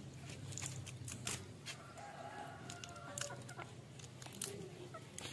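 Chickens clucking, with short drawn-out calls about two seconds in, over scattered small clicks and rustles.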